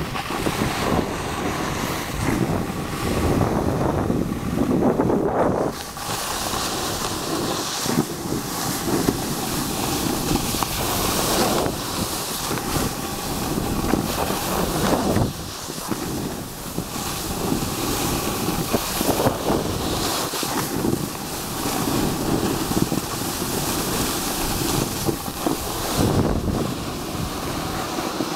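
Wind rushing and buffeting over the camera microphone of a skier going downhill, mixed with the scrape of skis sliding on the snow. The noise is loud and uneven, surging and dropping throughout.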